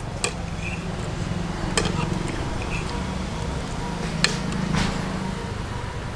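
Forks clinking against plates three times, with eating noises, over a steady low background rumble.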